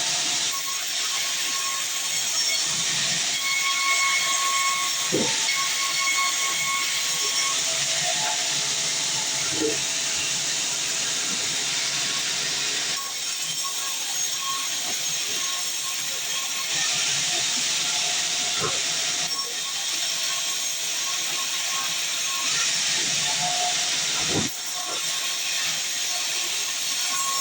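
Sawmill bandsaw cutting a heavy, dense log: a steady high-pitched sawing noise with a faint whining tone, changing character a few times along the cut.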